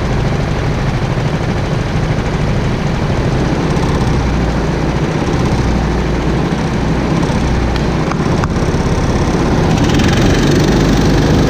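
Go-kart engines running at idle, the driver's own kart close and loudest, a steady rough small-engine sound. The engine note picks up a little near the end.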